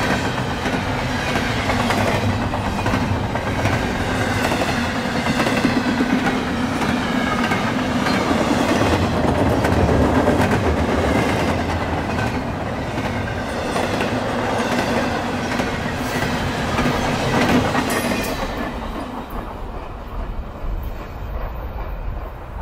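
Double-stack intermodal freight train's well cars rolling steadily past on the rails. The noise drops off near the end.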